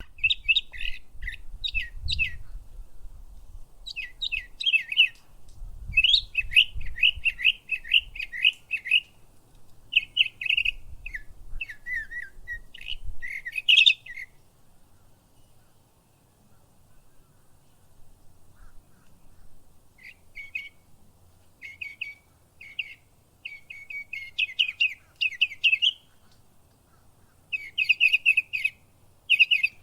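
Northern mockingbird singing: short runs of quick, repeated high notes, with a pause of several seconds about halfway through. A low rumble sits under the first half.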